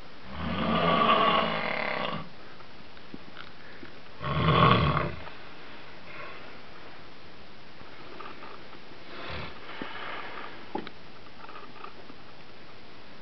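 A sleeping person snoring: two loud snores about four seconds apart, the first about two seconds long, then fainter breaths and snores later on.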